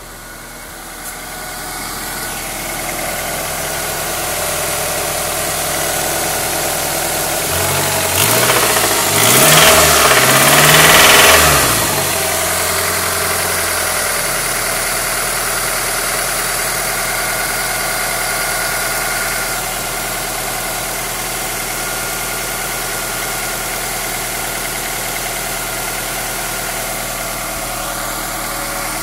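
1998 Honda Accord EX four-cylinder VTEC engine idling with a noise the owner cannot place and suspects is a knock or valve noise. It is blipped twice about a third of the way in, rising and falling in pitch, then settles back to a steady idle.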